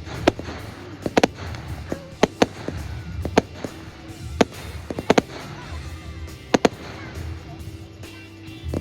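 Fireworks going off: sharp bangs at irregular intervals over a low rumble, with music playing underneath.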